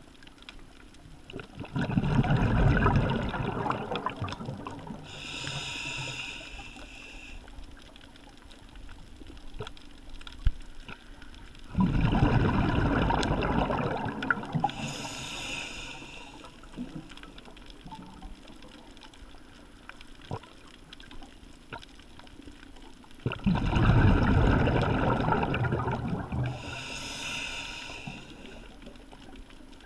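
A scuba diver breathes through a regulator, about ten seconds per breath. Three exhalations come as loud bubbling rushes, each followed a few seconds later by a thinner, higher hiss of inhalation.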